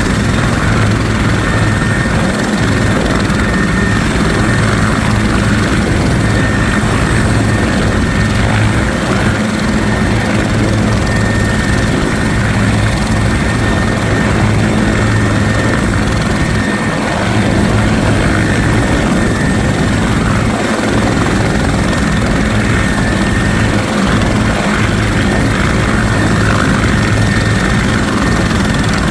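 Bell 412EP twin-turbine helicopter running loud and close: steady rotor beat with a thin, steady high whine above it.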